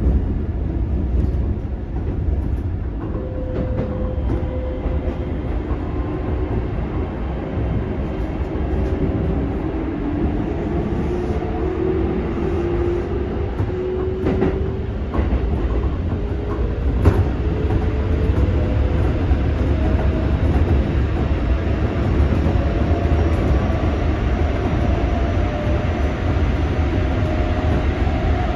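Keikyu 600 series electric train running, heard from inside the car. Its Toyo GTO-VVVF inverter and traction motors give a whine that climbs slowly in pitch as the train gathers speed, over a steady low rumble of wheels on rail. A few sharp clacks come about halfway through.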